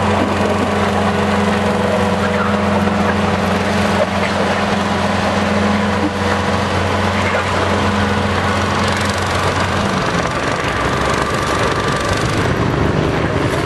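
A lawn tractor engine running hard as it pulls a weight-transfer sled, mixed with the engine of a full-size Farmall farm tractor running close by. The steady engine drone changes pitch about ten seconds in.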